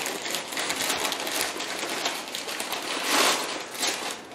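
Crumpled paper packing being rustled and crinkled by hands digging through it in a cardboard box, a busy crackling that swells loudest about three seconds in.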